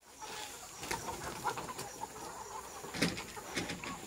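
A large flock of free-range criollo laying hens clucking and calling all at once, with a few sharp clicks among them.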